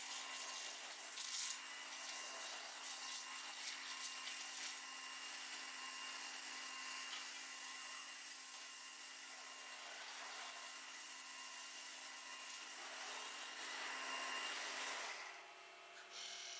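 Five-axis waterjet cutting a slab: a steady hiss of the high-pressure jet, with a faint steady hum under it. The hiss drops away near the end.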